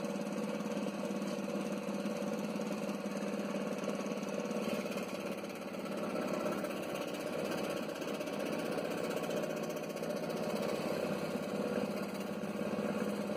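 Scroll saw running steadily with a fast, even rattle from its blade moving up and down while it cuts a thin white sheet.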